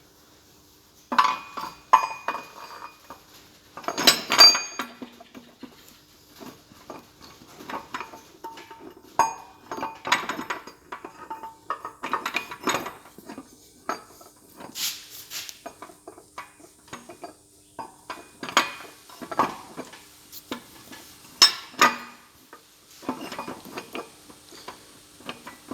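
Steel gears and shaft parts of a Massey Ferguson 135 gearbox clinking and clanking against each other as gears are slid on the mainshaft and worked into line in the housing: irregular metal knocks, some with a short ring.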